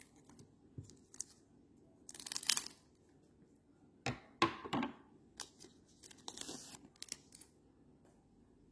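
Trading card pack wrappers being torn open and the cards handled: a series of short crinkling, tearing rustles, the longest about two seconds in and again about four to five seconds in.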